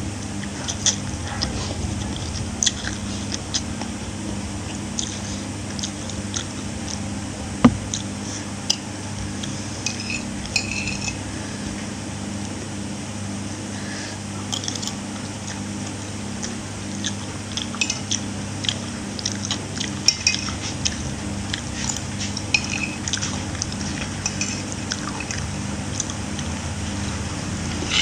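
Spoon or fork clinking and scraping against a plate and bowl, with eating sounds, while someone eats rice, long beans and meatballs. Many short clinks come at irregular intervals over a steady low hum.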